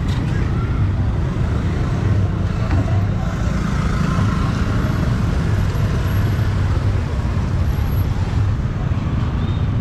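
Road traffic of motor scooters and cars passing close on a busy street, heard as a steady, dense low rumble.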